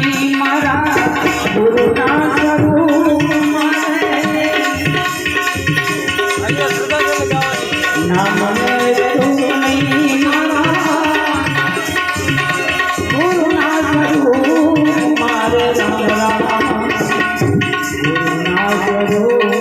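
Gujarati bhajan music: tabla playing a steady rhythm under a harmonium melody.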